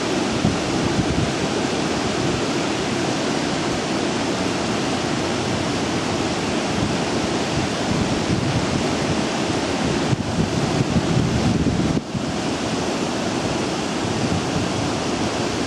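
Steady rushing of water in open water-treatment basins, with wind buffeting the microphone; the noise dips briefly about twelve seconds in.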